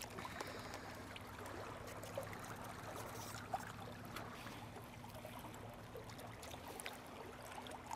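Small waves lapping and trickling against the shoreline rocks: a faint, steady wash of water with a few small clicks and a low steady hum underneath.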